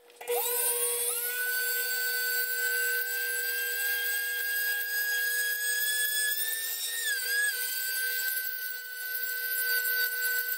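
Small handheld rotary hobby drill spinning up and running with a high, steady whine as it drills out window openings in a plastic model-kit hull. Its pitch sags and wavers briefly about seven seconds in as the bit bites into the plastic.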